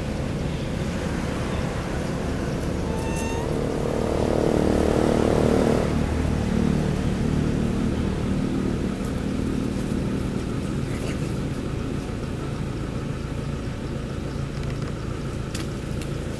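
A motor vehicle's engine passing by, over a steady low outdoor rumble. The engine hum grows louder about four seconds in, drops in pitch around six seconds, then fades away.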